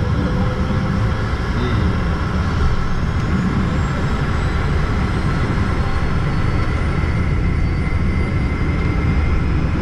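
Learjet's jet engines running at low, steady thrust, heard from inside the cabin as a constant deep rumble with a faint high whine, while the aircraft taxis before its takeoff roll.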